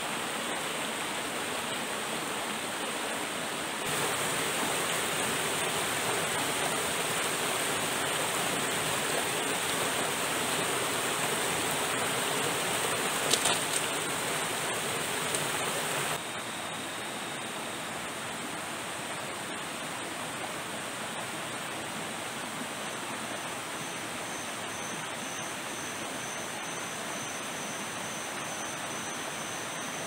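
River water rushing steadily, a little louder from about four seconds in and dropping back just past halfway, with a thin, steady high-pitched tone over it.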